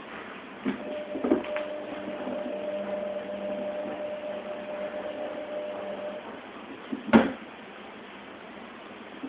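A steady mechanical hum starts about a second in and stops about six seconds in, with a few sharp knocks, the loudest one near the end.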